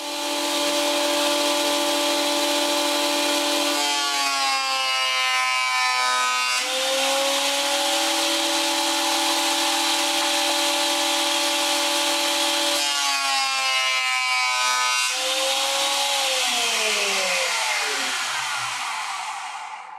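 Jointer (surface planer) running with a steady whine and hiss, its pitch sagging briefly twice as the board is fed across the cutterhead. Over the last few seconds the pitch falls steadily.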